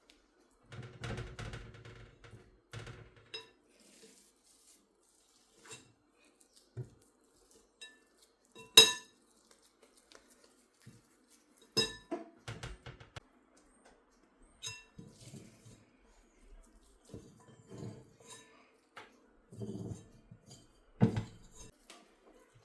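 Kitchenware being handled: dishes, glass and cutlery clinking and knocking at irregular intervals. The loudest is a single sharp, ringing clink about nine seconds in.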